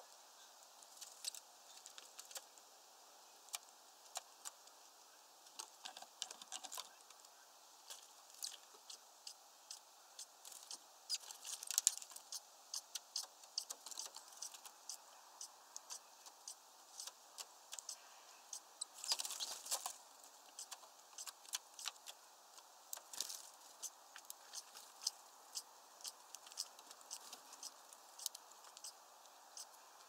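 Small birds pecking at sunflower seeds on a feeder tray: irregular sharp taps and clicks of beaks on seed and tray, with two busier flurries of clicks, about twelve and about nineteen seconds in.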